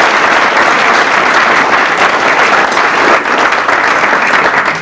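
Roomful of wedding guests applauding, dense steady clapping in response to a thank-you in the groom's speech.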